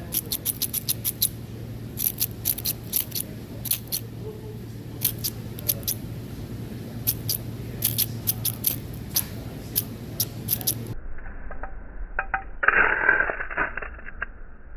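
Flint struck against steel again and again, sharp metallic clicks and scrapes coming in quick clusters over a low steady hum. About eleven seconds in the sound turns dull and slowed, with one louder drawn-out scrape of the strike.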